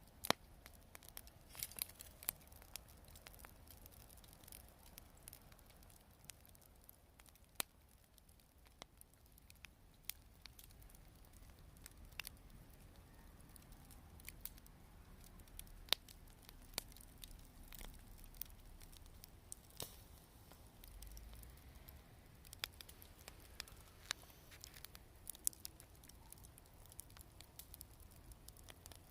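Wood campfire crackling quietly, with sharp pops and snaps at irregular moments throughout.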